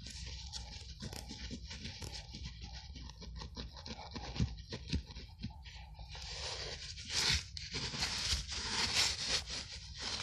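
Gloved hand scraping and brushing packed soil off a rusted buried metal box: a run of small scrapes and crumbling ticks, with louder rough rubbing bursts from about six seconds in.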